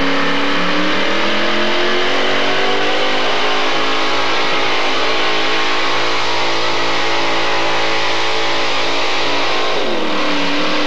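Modified pulling tractor's engine at full throttle dragging a weight-transfer sled. Its pitch climbs over the first few seconds, holds high and steady, then drops sharply near the end as the engine comes off full power.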